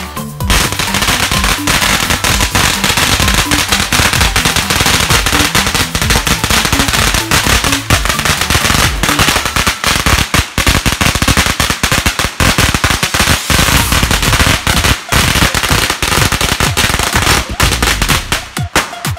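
Firecrackers and fireworks exploding in a rapid, dense, continuous crackle of bangs, loud throughout, thinning out and stopping near the end.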